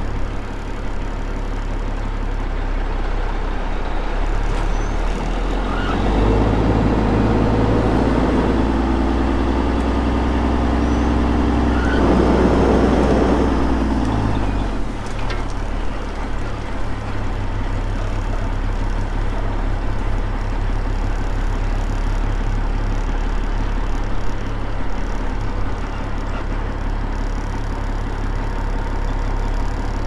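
Vehicle engine running steadily, heard from inside the cab. About six seconds in it revs up louder with a clear pitched tone, holds for about eight seconds, then drops back to a steady run.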